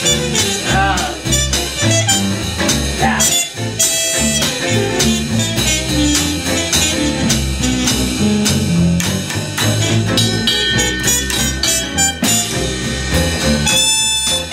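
Live acoustic jazz instrumental: a trumpet plays the lead over a plucked double bass line that moves to a new note about every half second, with a steady tapped beat.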